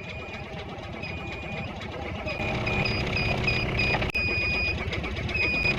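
Off-road vehicle engine running and growing louder, with an electronic warning beep sounding on and off over it, some beeps long and some quick in a row about three or four a second. A single sharp click sounds about four seconds in.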